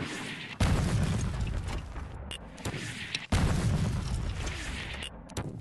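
Mortar shells exploding one after another: two sudden blasts, about half a second in and again past three seconds, each followed by a long rumble that slowly dies away.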